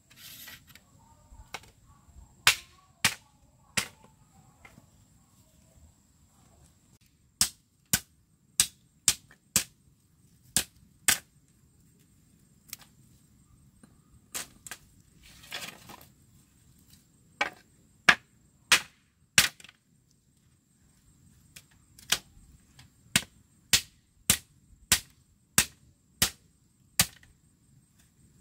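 A series of sharp, hard knocks, struck in runs at about two a second with short pauses between runs.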